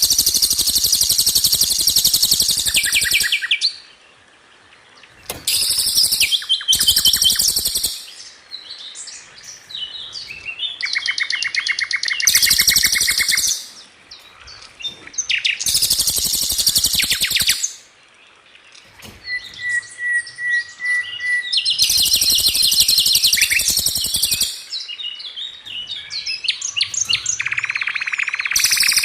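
Songbird masteran recording of rapid rolling 'tembakan' phrases, used to tutor cage songbirds: very fast high trills and machine-gun-like repeated notes in bursts of a few seconds, with short breaks between.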